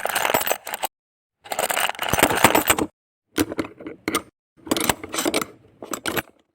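Small plastic building bricks clattering and clicking together in four short bursts, each cut off into dead silence.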